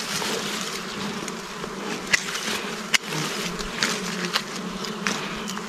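Swarm of bees buzzing steadily around their disturbed comb, with a few short crackles of dry leaves being pulled aside near the nest.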